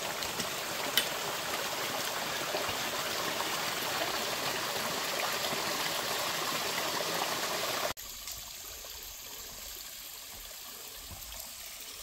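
Small mountain stream splashing as it falls over rocks into a shallow pool, a steady rush of water. It cuts off suddenly about eight seconds in, leaving only fainter outdoor background.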